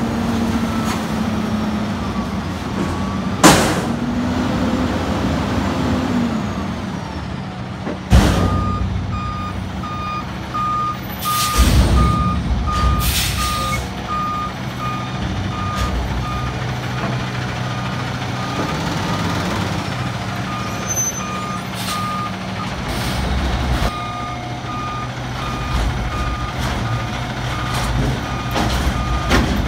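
New Way Mammoth front-loader garbage truck running and working its hydraulics as it services a dumpster, with loud metal bangs about three and eight seconds in and more clanking around twelve seconds. From about eight seconds its reverse alarm beeps steadily, pausing briefly near the end, as the truck backs up.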